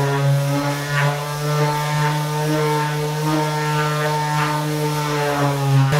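Einhell TE-OS 1320 triangular detail sander running steadily with its pad working on a wooden board: an even electric motor hum.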